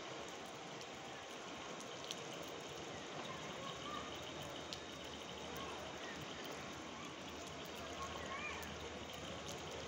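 Steady low background hiss of outdoor ambience, with a few faint short chirps.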